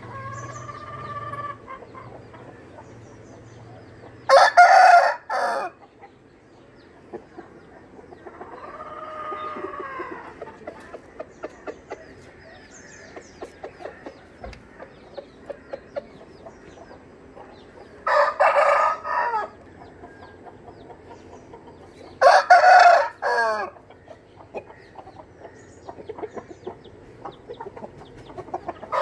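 Roosters crowing: three loud, short crows, one about four seconds in and two close together past the middle, with fainter, longer crows rising and falling near the start and about a third of the way in. Soft, quick clucks run between them.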